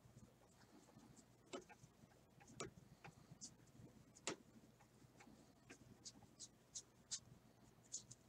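Faint, irregular flicks and clicks of 2017-18 Panini Hoops basketball trading cards being thumbed through one by one in a stack, with a few sharper snaps in the first half.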